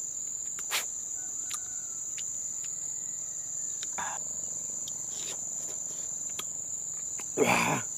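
Steady, high-pitched insect drone, like crickets, that runs without a break. A few faint clicks come through it, and near the end there is a short, louder mouth or voice sound from the man eating the berries.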